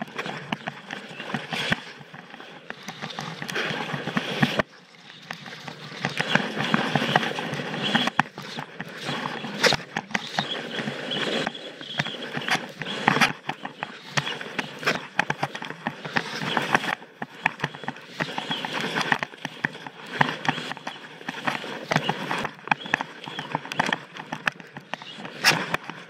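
Skis carving and scraping over firm snow through a run of turns, with many sharp knocks and rattles, picked up by a camera mounted on the skier's backpack. There is a short lull about four and a half seconds in.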